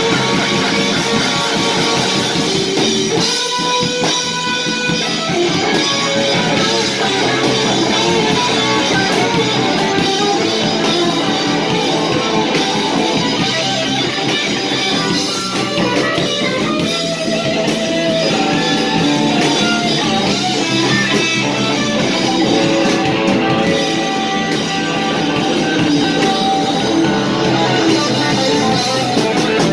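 Live rock band playing an instrumental passage: electric guitar, bass guitar and drum kit.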